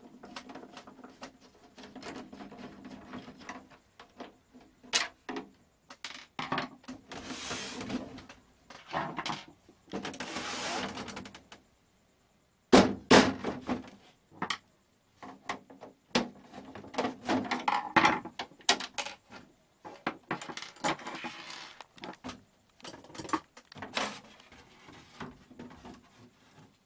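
Screwdriver and hands working the plastic rear cabinet of a CRT television as it is unscrewed and taken off: scattered clicks, scrapes and knocks of hard plastic, with a sudden loud knock about 13 seconds in.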